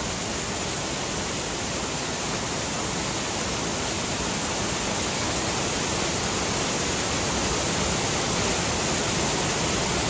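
Sangrampunji (Mayabi) waterfall cascading over boulders close by: a steady, loud rush of falling water that swells slightly towards the end.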